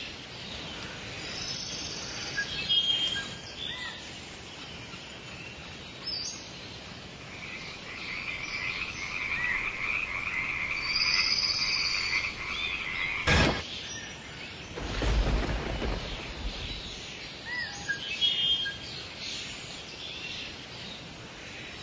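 Natural outdoor ambience of frogs croaking with birds chirping over a steady background hiss. A single sharp hit comes about thirteen seconds in, and a low thud follows a couple of seconds later.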